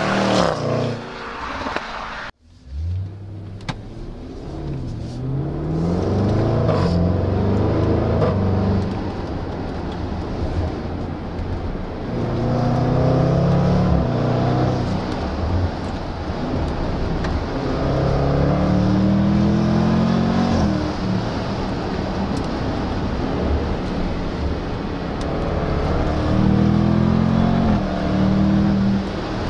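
Jaguar F-Pace SVR's 5.0-litre supercharged V8 passing at speed, its pitch falling, then after an abrupt cut the same engine accelerating hard. Its pitch climbs and drops back at each upshift, several times over.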